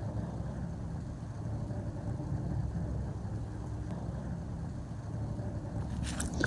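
Steady low engine-like hum, as of a motor vehicle idling, with short crackling sounds starting near the end.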